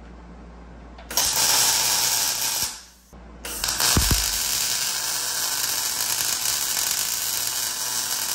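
Wire-feed welder arc crackling and buzzing in two runs, one of about a second and a half, then a longer one of about five seconds, tack-welding a four-link upper bar mount onto the truck's rear axle housing.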